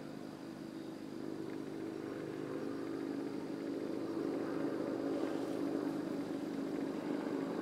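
Steady drone of a distant engine, growing gradually louder.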